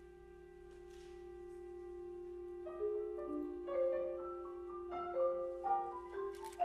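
Contemporary chamber-ensemble music: one held note swells slowly, then a little under three seconds in a flurry of quick, short notes enters above it.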